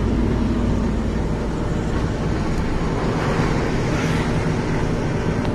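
Heavy goods lorry's diesel engine running steadily, a low even rumble heard from inside the cab.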